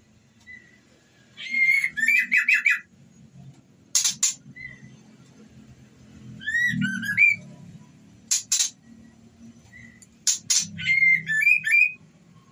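Female white-rumped shama in breeding condition calling for a male. The calls come as repeated phrases, each a few sharp, harsh clicks followed by a quick run of whistled, chattering notes, about every three seconds, over a faint low hum.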